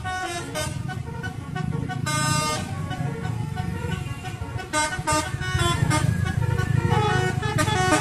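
Coach's telolet air horn playing a tune of quick, stepping notes, over the low rumble of the bus's engine as it approaches.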